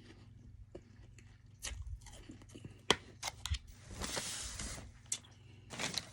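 Close-up mouth sounds of chewing and crunching soft freezer-frost ice: scattered sharp crackles, the loudest a crisp crack about three seconds in, with a longer crunching burst around the fourth second and another near the end.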